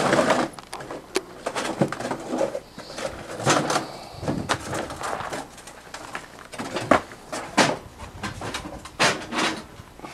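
Irregular sharp knocks and scrapes of rock on rock and gravel, about one or two a second and uneven in loudness, as stones are shifted or stepped on over rubble.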